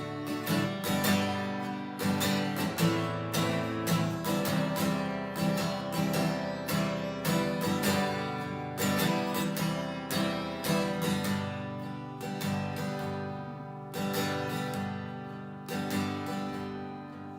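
Acoustic guitar strummed in a steady rhythm, an instrumental passage with no singing between lines of a worship song.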